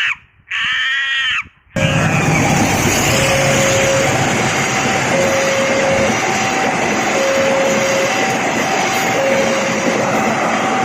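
A passenger train passing close by, a loud steady rush of wheels and carriages that sets in suddenly about two seconds in. Over it, a two-tone warning signal alternates between a lower and a higher note about once a second. Before the train, a short repeated pitched sound effect ends about a second and a half in.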